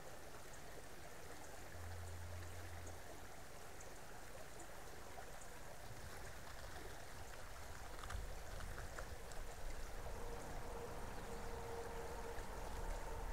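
Creek water running steadily over its bed, an even rushing trickle. About two-thirds of the way through, a low rumble joins in and grows louder.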